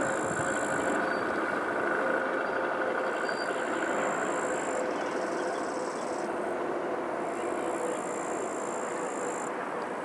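Mitsubishi CRJ-100ER jet's two rear-mounted CF34 turbofans on approach with gear down: a steady jet rumble with a whine, easing slightly toward the end.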